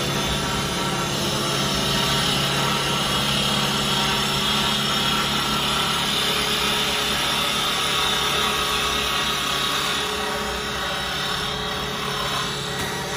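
Automatic CNC wood-turning lathe running steadily: a constant motor hum under a continuous hiss of the wood being worked, the hiss easing a little about ten seconds in.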